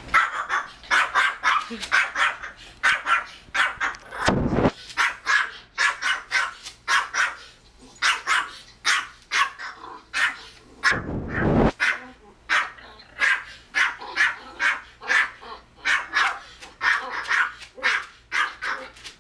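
Pomeranian barking rapidly and repeatedly, about two barks a second, with barks from a dog on the TV mixed in. Two low thumps break in about four and eleven seconds in.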